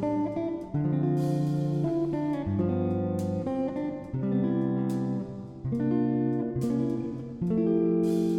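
Guitar music: plucked and strummed chords, changing about once a second.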